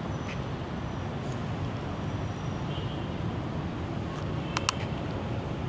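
Steady hum of city road traffic. About four and a half seconds in, two sharp clicks in quick succession: the mechanical shutter of an Olympus E-M1 camera firing once.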